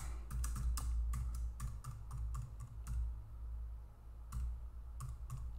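Typing on a computer keyboard: a quick run of key presses for about three seconds, then a pause and a few more keystrokes near the end, over a low steady hum.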